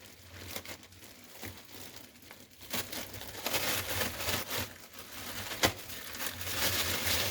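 Plastic bag of dried fruit being handled and crinkling, quiet at first and then rustling busily from about three seconds in, with one sharp knock about five and a half seconds in.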